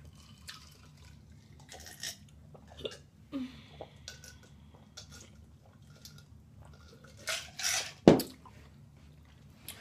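Close-up eating sounds: wet lip smacking and chewing of chicken and rice, heard as scattered short clicks and smacks. A louder burst of noise and a sharp knock come about eight seconds in.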